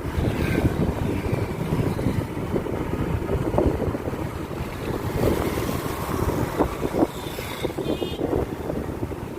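Vehicle on the road: a steady low rumble of road and engine noise, with wind buffeting the microphone. A short high-pitched sound comes about eight seconds in.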